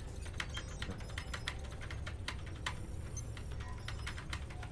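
Computer keyboard typing: irregular keystroke clicks over a steady low hum.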